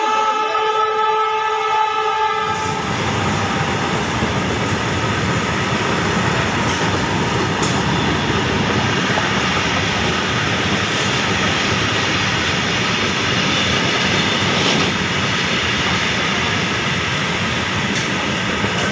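A train horn sounds one long steady note that cuts off about three seconds in, then a freight train runs past close by: a steady, loud noise of wheels on rails with a few sharp clicks.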